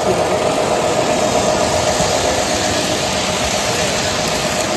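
O gauge model train running, a steady rumble with a constant hum.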